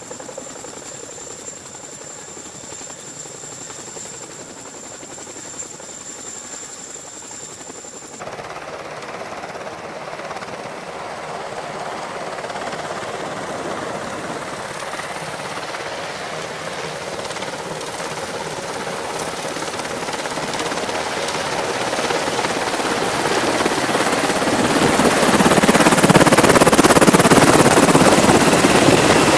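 UH-60 Black Hawk helicopter running close by, its rotor and turbine engines making a steady high whine at first. About eight seconds in, this changes abruptly to a louder, even rush of rotor noise that keeps building and is loudest near the end.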